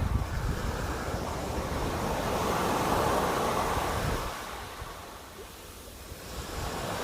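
Sea waves washing onto the shore: a wave swells, breaks and draws back to a brief lull, then the next one builds near the end. Wind rumbles on the microphone at the start.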